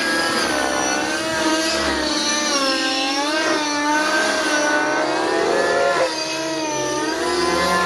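JR Vibe 50 nitro RC helicopter in 3D aerobatic flight: its O.S. MAX-55HZ two-stroke glow engine and rotor whine, the pitch rising and falling without a break as the rotor is loaded and unloaded through the manoeuvres.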